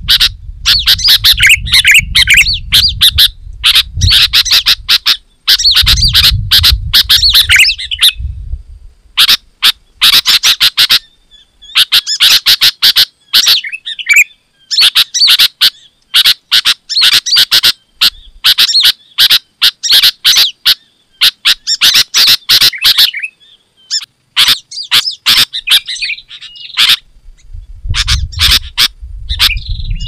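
Sooty-headed bulbul song, loud and busy: rapid runs of bright chirps and warbles in bursts of a few seconds, with short pauses between them. A low rumble sits under the song at the start and again near the end.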